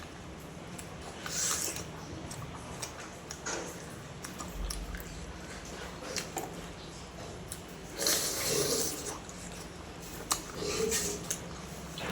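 A person eating close to the microphone: chewing and other mouth sounds come in uneven bursts, the loudest about a second and a half in and again around eight seconds in.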